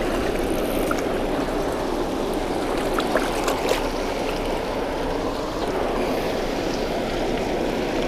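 Water pouring over a spillway: a steady, even rushing noise.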